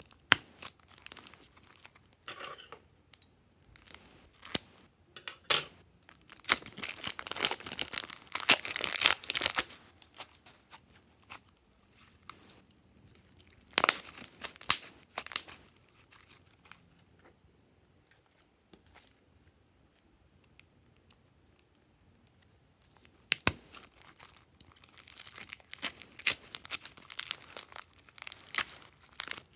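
Glossy slime squeezed by hand out of plastic piping bags and pulled apart. The sound is irregular bursts of plastic crinkling and crackly tearing, with a quiet stretch about two-thirds of the way through.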